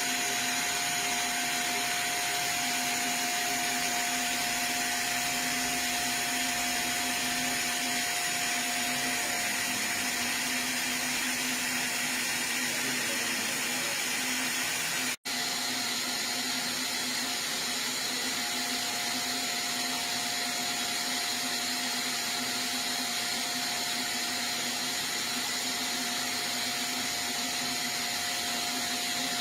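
Disk mastering lathe running with its stereo cutter head: a steady whirring hiss with a few constant tones through it. The sound drops out for an instant about halfway through.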